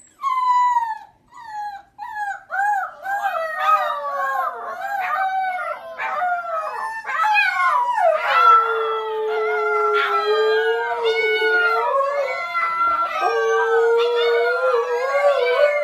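Several husky puppies howling together: short yips and whines at first, building after a few seconds into many overlapping rising and falling howls, with one long low howl held steady through the second half.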